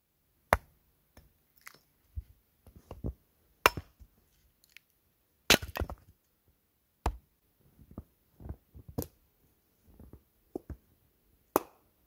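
A hatchet splitting firewood on a stump chopping block: about six sharp, loud blows of the axe into wood at irregular intervals, with softer wooden knocks between them.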